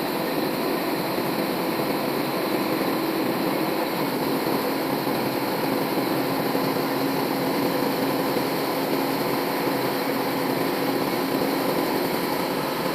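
Old band sawmill running steadily, its blade sawing lengthwise through a big log to take off a slab.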